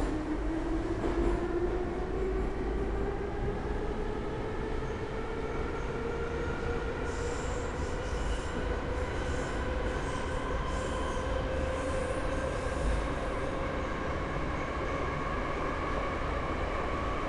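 Interior sound of an 81-717.5 metro car under way: the traction motors and gearing give a whine that rises in pitch as the car gathers speed for the first several seconds, then levels off, over a steady rumble of wheels on rail. A faint high squeal comes and goes in the middle.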